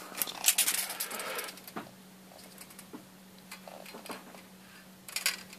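Steel tape measure being pulled out and handled: a quick flurry of clicks and rattles in the first second and a half, then scattered light ticks, and a short clatter near the end.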